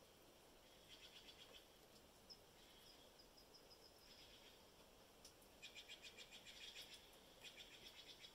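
Near silence with faint, high-pitched animal calls. Rapid trills of about a second each come several times, loudest in the second half, and thin short chirps fall in a series between them.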